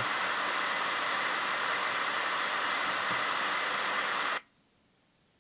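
Radio static hissing steadily from a repaired car stereo's speaker, then cutting off suddenly about four seconds in.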